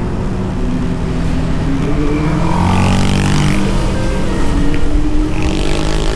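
Motorcycle engine running on the road, its pitch rising and falling with the throttle, with road and wind hiss swelling twice.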